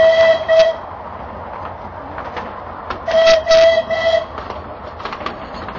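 Steam locomotive whistle: a held blast that cuts off under a second in, then a second blast about three seconds in, lasting about a second and broken into short toots. Light clicking of the wheels on the track runs underneath as the train moves.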